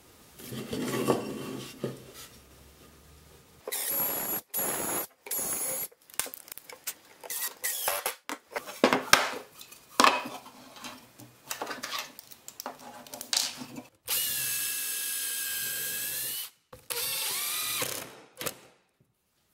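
Cordless drill driving screws into maple boards: short runs of the motor's whine a few seconds in, then two longer steady runs near the end. In between, sharp knocks and clicks of wooden boards being handled and set down on the workbench.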